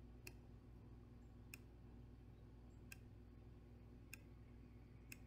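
Five faint computer mouse clicks, roughly one every second and a quarter, over a low steady hum.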